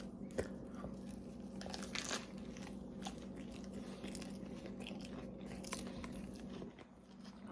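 A person biting into and chewing a flour tortilla wrap of honey ham, cheese and lettuce. It makes scattered crunches and wet mouth clicks, over a steady low hum.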